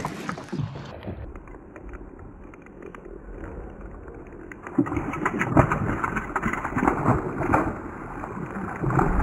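A hooked bass thrashing and splashing at the water's surface as it is played toward the boat, with a cluster of splashes from about halfway through.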